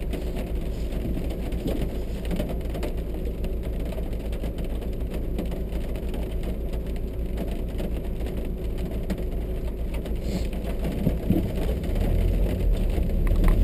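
Car engine idling at a standstill, heard from inside the cabin as a steady low hum, with rain falling on the car. The sound grows a little louder in the last couple of seconds.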